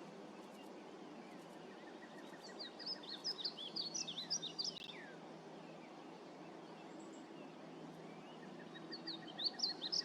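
Painted bunting singing: a quick, bright jumble of high gliding notes lasting about two and a half seconds, then a second song phrase starting near the end, over a steady background hiss.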